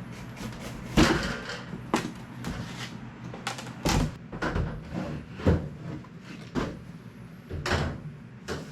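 Irregular knocks and clunks from building work on a framed structure: about eight separate strikes spread over several seconds, over a low steady hum.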